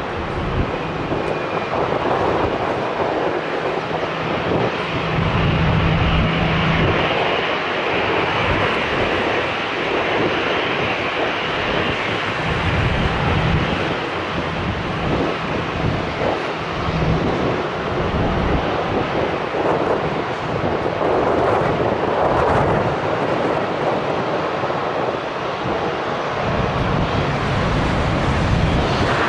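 Airbus A350-900's Rolls-Royce Trent XWB jet engines running with a steady, loud noise, with wind on the microphone.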